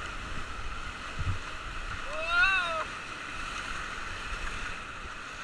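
Churning whitewater of a big river rapid rushing around a raft. About two seconds in, a single whoop from a rafter rises and falls in pitch.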